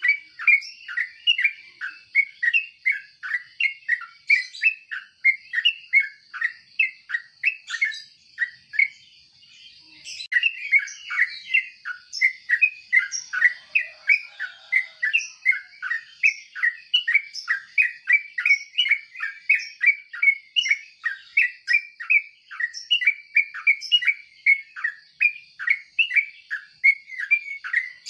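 Yellow-vented bulbul calling: a long, fast run of short repeated chirps, a little over two a second, with a brief pause about eight seconds in. A steady faint high tone sounds underneath.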